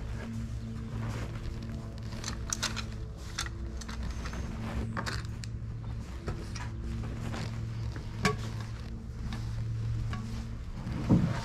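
Light clicks and knocks of small items, such as a metal tin and plastic-packaged toys, being handled on a table, with one sharper click about two-thirds of the way through. A low steady hum sits under it.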